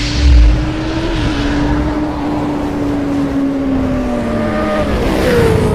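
Sound effect of a sport-bike engine held at high revs, opening with a deep boom. Its pitch sags slowly over the last couple of seconds, then dips and jumps to a higher note near the end.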